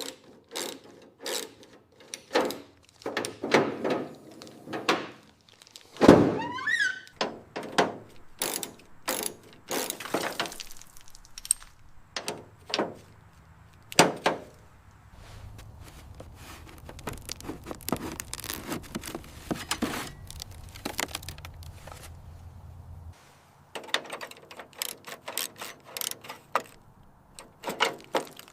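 Irregular run of knocks and thunks, with a short rising squeal about six seconds in and a low steady hum from about six seconds until about twenty-three seconds.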